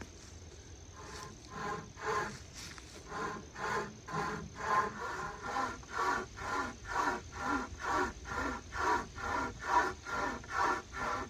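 Pocket chainsaw, a hand-pulled chain with a handle at each end, sawing back and forth through a wooden log in rhythmic rasping strokes. It starts about a second in, and the strokes grow louder and quicken to nearly two a second.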